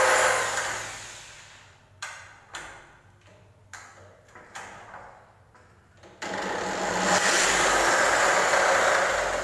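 Electric drill running against the aluminum door frame, then spinning down; a few short clicks and knocks follow, and about six seconds in the drill starts up again and runs steadily.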